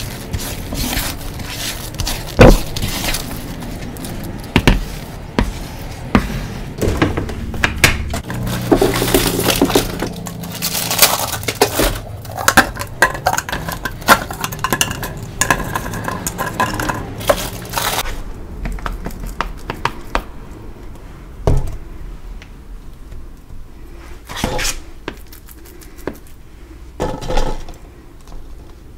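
Damp gym chalk being pressed, squished and scraped, with dense crunching and crackling, then sparser knocks and taps of a spoon and clear plastic cups as the chalk is packed into the cups, from about two-thirds of the way in.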